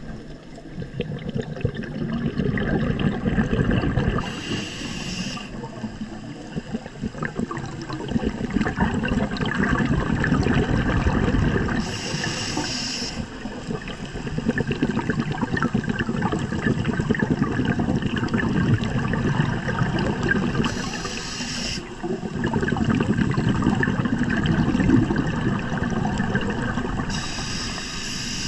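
Scuba regulator breathing heard underwater. A short hissing inhale comes four times, roughly every seven to nine seconds, and each is followed by several seconds of crackling, bubbling exhaled air.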